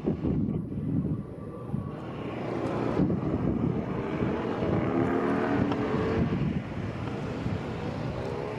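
Aircraft passing overhead: its noise swells about two seconds in, peaks midway with a slightly bending drone, then eases, over wind buffeting the microphone.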